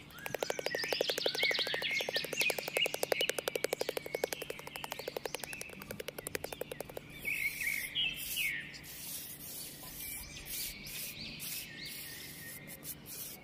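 Birds chirping in short gliding calls, over a fast pulsing trill that stops about seven seconds in; after that the chirps go on with scattered brief scratchy noises.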